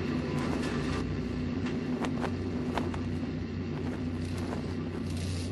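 A steady low rumble with a constant droning hum underneath, and a few faint clicks.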